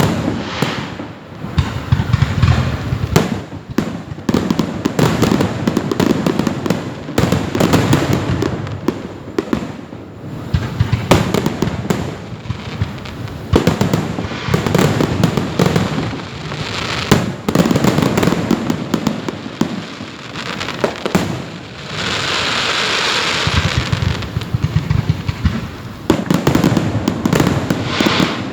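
Fireworks display: shells bursting one after another with sharp bangs and crackles, and a steady hiss for about two seconds roughly three-quarters of the way through.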